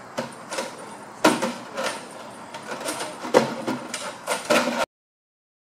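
Irregular knocks and clatter, with faint voices in the background, cutting off abruptly into dead silence about five seconds in.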